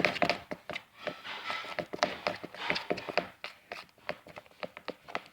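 Stirring a fluffy slime base of glue and shaving cream in a bowl: a quick, irregular run of small clicks and taps from the stirring utensil working through the mixture.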